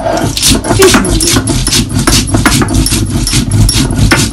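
Sil-batta grinding: a stone roller worked back and forth over a stone slab, crushing whole spices (cardamom, cloves, cinnamon, mace) with a little water into a garam masala paste. It makes rhythmic grating scrapes of stone on stone, about three to four strokes a second.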